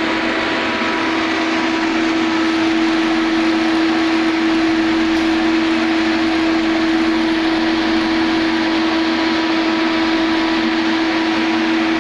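Steady mechanical drone, like a large fan or machinery running: a constant rushing noise with one strong, unchanging hum tone through it.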